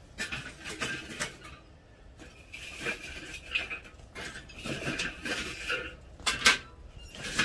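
Metal cookware being handled: a string of clanks, knocks and scrapes, several with a brief metallic ring, the loudest clank about six and a half seconds in.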